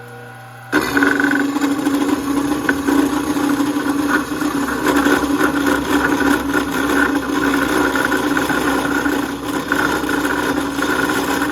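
Electric power tool cutting steel stock: a quieter motor hum, then about a second in the tool bites into the metal and runs under load with a steady, loud whine.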